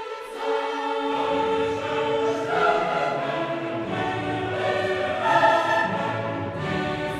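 Choral music: a choir singing long held notes in harmony, with lower parts coming in about a second in.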